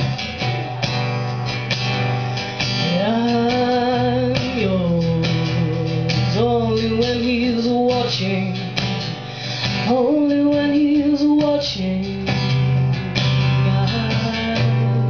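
Strummed acoustic guitar with a singer's voice holding three long sung notes over it, live at a microphone.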